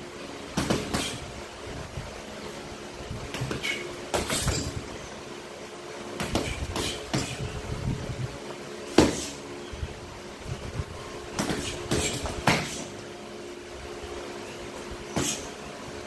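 Gloved punches landing on a water-filled punching bag hung on a chain, sharp slaps in quick combinations of two or three with short pauses between, about a dozen hits in all. A faint steady hum sits underneath.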